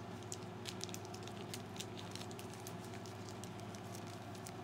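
Small clear plastic zip-lock bag crinkling with scattered faint clicks as it is handled and opened, over a steady low hum.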